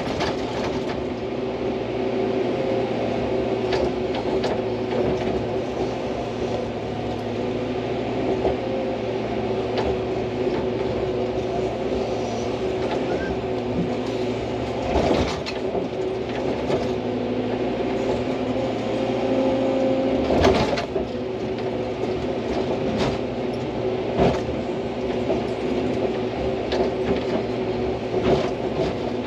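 Hydraulic excavator's diesel engine running steadily under load while the machine digs, with several sharp knocks as the bucket works at rock and clay; the loudest knock comes about twenty seconds in.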